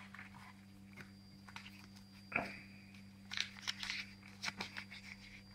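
Faint scattered clicks and rustles from a toy candy-grabber claw machine being worked by hand and a folded paper ticket being picked out of its prize chute, over a steady low hum.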